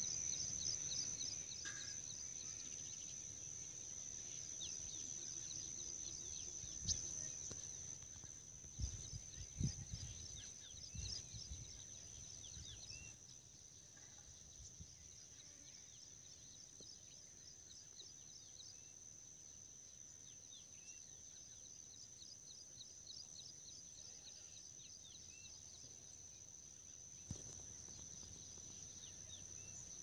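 Insects singing outdoors: a steady high-pitched buzz with a fast pulsing trill, joined by a few faint bird chirps. Low thumps and rumbles of wind or handling on the microphone come and go in the first dozen seconds and once near the end.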